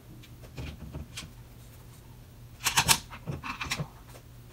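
Workbench handling noise: a few light clicks, then a louder brief clatter of parts and tools about two and a half seconds in, with smaller knocks after it, over a steady low hum.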